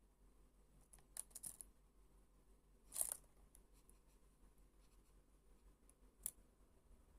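A Java sparrow's beak pecking and nibbling at computer keyboard keys: a few small clicks about a second in, a sharper click around three seconds, and another near the end, with near silence between.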